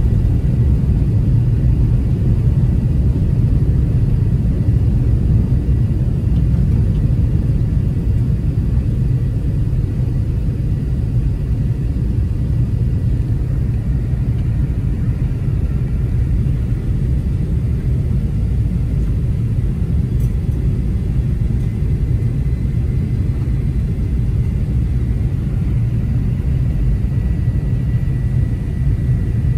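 Steady low rumble of engine and airflow noise inside the cabin of an Airbus A380-800 climbing after takeoff.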